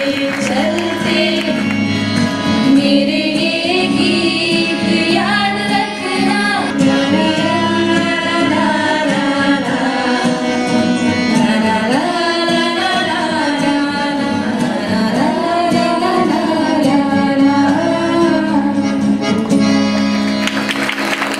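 A song: one voice singing a gliding melody over instrumental backing with a steady low drone.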